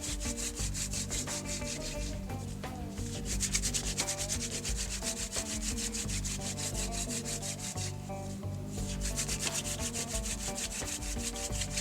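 Hand-drill fire making: a dry wildflower-stalk spindle spun rapidly back and forth between the palms, grinding into a soft-wood hearth board in a fast rubbing rhythm. The spinning breaks off briefly twice, about two seconds in and again about eight seconds in, as the hands go back to the top of the stalk. The friction is building heat and smoke toward an ember in the wood dust.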